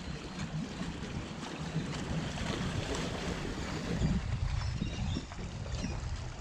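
Yamaha outboard motor running at low revs in reverse as the boat backs out, with the propeller churning water and wind on the microphone.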